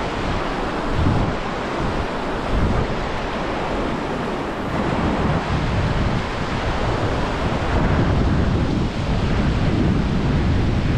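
Fast river rushing through whitewater rapids over rocks, a steady dense wash of water noise, with wind gusting on the microphone.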